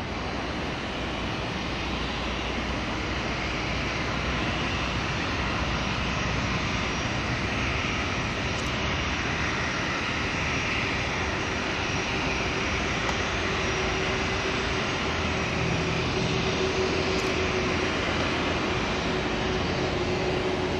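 Boeing 737-300's CFM56-3 turbofan engines running at low taxi power as the airliner taxis past: a steady jet engine noise with a low hum that grows stronger in the second half.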